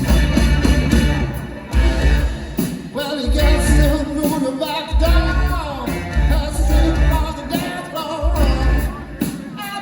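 Live rock band playing over a heavy, pulsing bass and drum beat, with a lead singer's voice carrying a line that slides up and down in pitch.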